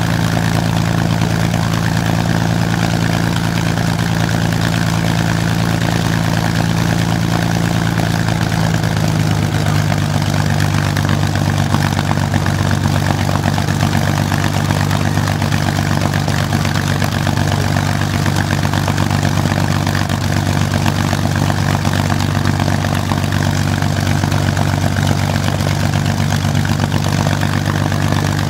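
Rolls-Royce Merlin V12 aero engine running steadily at a low, even speed on a trailer test stand, its propeller turning. The engine's note drops slightly about nine seconds in and then holds steady.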